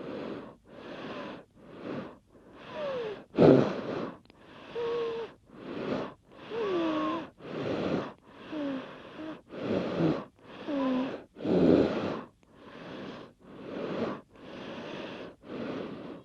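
A person snoring in quick, rasping breaths, about one a second, some breaths carrying a squeaky whistle that slides up and down in pitch.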